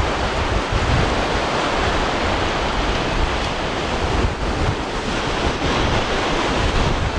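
Wind-driven surf washing in over a small sand beach, mixed with strong wind buffeting the microphone in uneven gusts.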